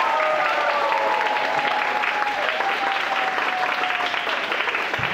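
Audience applauding, with a few long, slowly falling cheers over the first few seconds, as the samba music ends.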